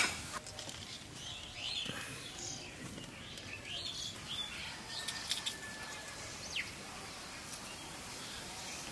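Small birds chirping faintly now and then, with a short sliding whistle later on, over a low outdoor background with a few light clicks.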